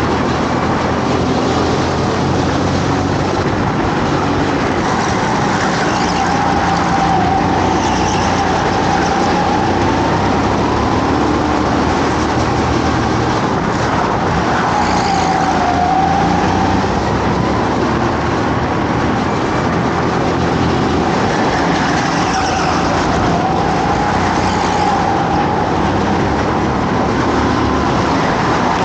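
Go-kart engine heard on board during a race, running hard. Its pitch rises and falls repeatedly as the kart accelerates and slows through the corners.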